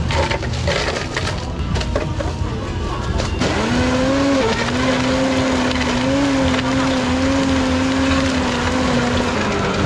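Ice cubes clattering into a plastic blender jar over cut fruit, then about three and a half seconds in a countertop blender starts and runs with a steady motor whine. The pitch wavers slightly as the blades crush the ice and fruit, and dips near the end.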